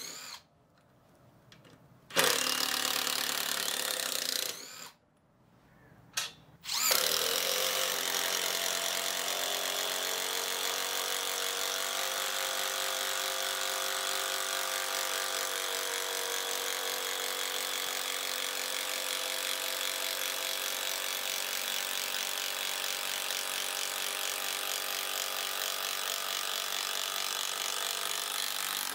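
Bosch GDR 12V-105 12-volt cordless impact driver driving a long wood screw into timber, its impact mechanism hammering rapidly. Two short pauses in the first seven seconds, broken by a short run and a brief blip, then one long unbroken run as the screw sinks in.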